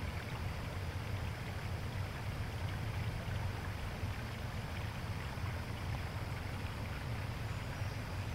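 Steady low rumble with a hiss over it, even throughout, with no distinct separate sounds standing out.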